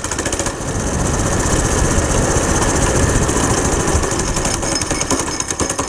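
Single-cylinder Predator small engine on a go-kart running with a rapid putter. It picks up and runs louder from about half a second in, then eases back near the end.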